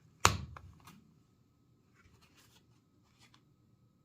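A Leatherman Rebar multitool being handled: one sharp metallic click with a thud about a third of a second in, followed by a few faint rustles.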